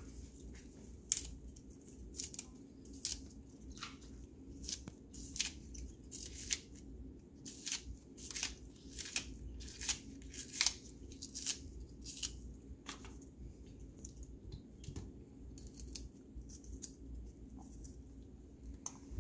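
A knife cutting through a green onion held in the hand, with a crisp snip at each slice. The cuts come irregularly, about one or two a second, and thin out and grow fainter after about thirteen seconds.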